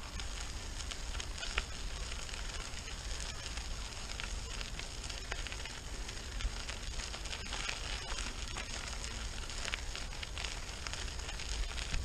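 Unicycle tyre rolling over a gravel track: a steady fine crackle of crunching grit and stones, with a low wind rumble on the microphone underneath.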